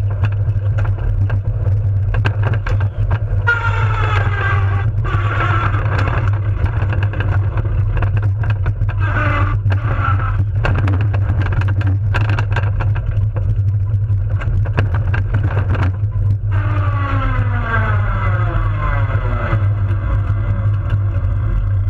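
Unpowered soapbox cart rolling fast downhill on asphalt: a steady low rumble of wheels and wind on the onboard microphone. A whine falling in pitch comes in three times: a few seconds in, around halfway, and in the last few seconds.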